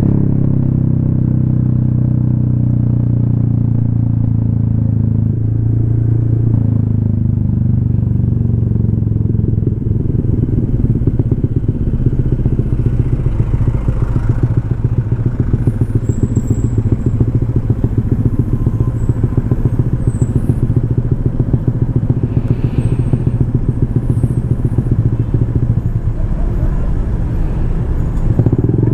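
Honda ADV 150 scooter's single-cylinder engine running through an aftermarket SC Project exhaust: the engine note falls as the scooter slows over the first ten seconds or so, then settles into a rapid, even pulsing idle, and revs up again near the end.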